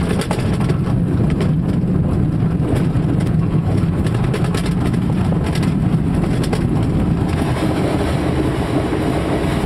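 Grob 103 two-seat glider on its takeoff roll over grass, heard from inside the cockpit: a loud, steady low rumble with constant rattling as the wheel runs over the rough field and the airframe and canopy shake.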